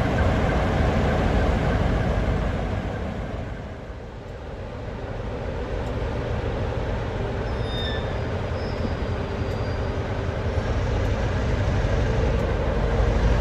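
Class 47 diesel locomotive's Sulzer twin-bank V12 engine running with a heavy low rumble. The sound dips about four seconds in and builds back. Near the end a steady engine tone rises in level as the locomotive powers up to pull its train away, exhaust rising from the roof.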